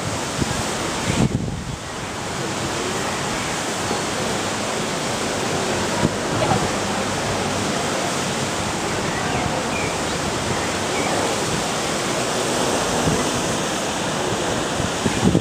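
Water pouring through a canal lock gate, a steady, dense rushing hiss.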